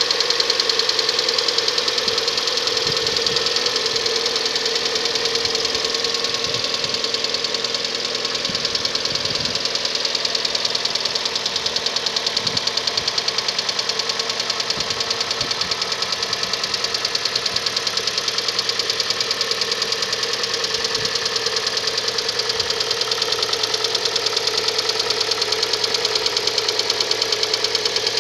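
Hyundai ix35's G4NA 2.0-litre four-cylinder petrol engine idling after a cold start, with a steady, fast, even ticking clatter over the idle: the timing-chain knock that is put down to a weak hydraulic chain tensioner.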